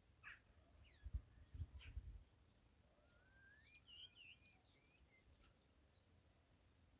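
Starling song, faint: scattered whistles, a rising whistle and quick wavering notes, mixed with short sharp clicks. A few low thumps in the first two seconds.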